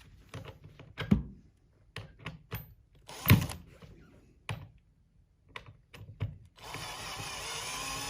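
Knocks and clunks of chair parts and screws being handled, then a power drill running for about two seconds near the end, driving a screw that joins the back cushion to the seat.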